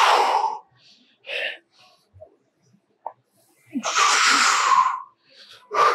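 A man breathing hard and forcefully under heavy leg press reps: four sharp exhalations, the longest lasting about a second around four seconds in.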